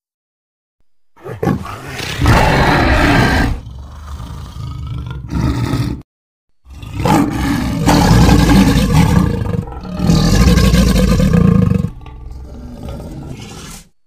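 Dinosaur roar sound effect: two long roars, the second starting after a brief silence about six and a half seconds in, each loud at first and trailing off quieter.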